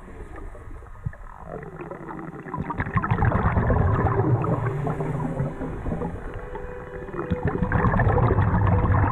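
Underwater sound from a scuba diver's camera: exhaled regulator bubbles crackling and gurgling over a low rumble, swelling about three seconds in and again near the end.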